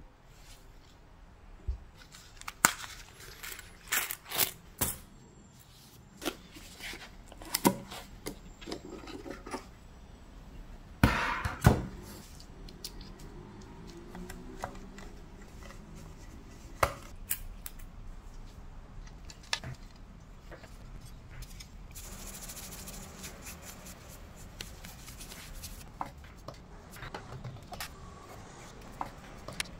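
Irregular sharp clicks, taps and clinks of a precision screwdriver and small metal parts being unscrewed and lifted out of a Mac mini's aluminium case, with the loudest knocks about eleven to twelve seconds in. A spell of soft rustling comes later.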